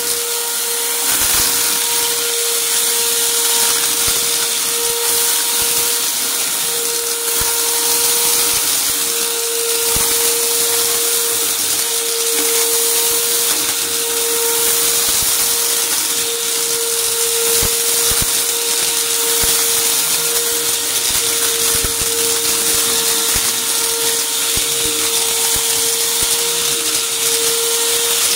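Upright vacuum cleaner running steadily on carpet: a constant motor whine over a high hiss, with many small crunches and ticks as grit and debris are sucked up.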